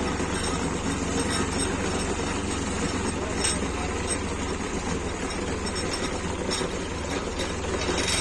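Tractor engine running steadily with an even low throb, a few light metallic clicks on top.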